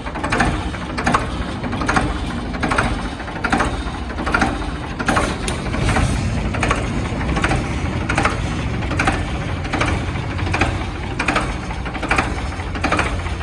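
Ford 3600 tractor's three-cylinder engine running steadily, with a sharp clack repeating evenly a little more than once a second over the low rumble.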